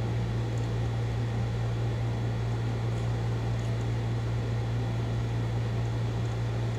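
Steady low hum of a truck-mounted crane's engine running at a constant speed.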